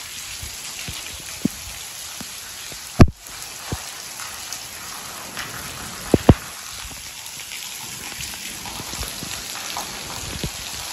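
Steady rain falling, with a few sharp close taps, the loudest about three seconds in and a quick pair a little after six seconds.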